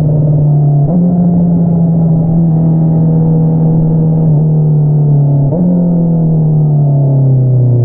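2022 Honda CBR650R's inline-four running through an Akrapovič single-outlet exhaust while the bike slows on engine braking. The engine note jumps up suddenly about a second in and again a little past the halfway mark, then sinks slowly each time, as on downshifts.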